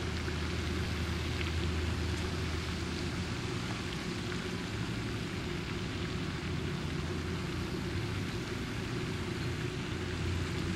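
A steady low hum under a continuous hiss, with a few faint ticks.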